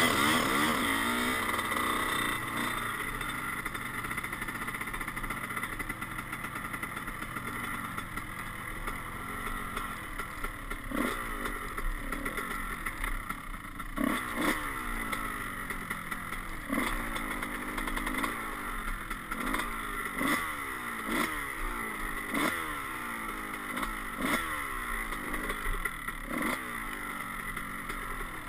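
Honda CR125 two-stroke dirt bike engine, heard from the bike itself while riding a rough trail. The engine pitch rises and falls repeatedly as the throttle is blipped, about once a second through the second half.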